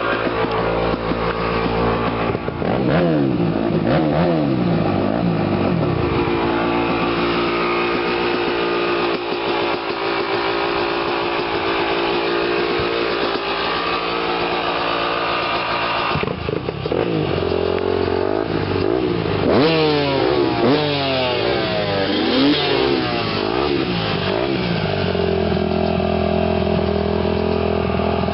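Yamaha 250 motocross bike engine idling and being blipped by hand: a few quick revs rise and fall a couple of seconds in, then a longer run of repeated revs in the middle, before it settles back to a steady idle near the end.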